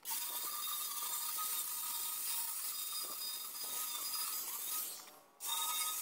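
Electric angle grinder with a flap disc, switched on and running with a steady high whine. It winds down about five seconds in and is started again at once.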